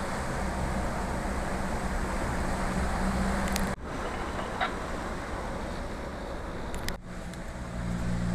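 Toyota Land Cruiser LJ70's four-cylinder diesel engine running steadily under way, with a low hum and road and wind noise. The sound breaks off abruptly twice, about four and seven seconds in, and carries on each time.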